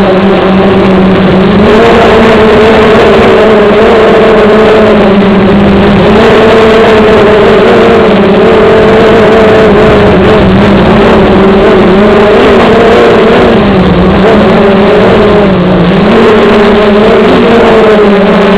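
Electric motors and propellers of a small FPV aircraft, loud and close through its onboard camera's microphone: a steady buzzing whine whose pitch wavers slightly up and down with throttle changes.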